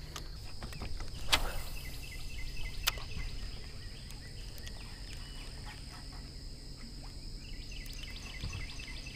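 A spinning rod is cast with a brief swish about a second and a half in. A sharp click follows as the spinning reel's bail closes, then quiet reeling, over a faint steady high hum and light wind rumble.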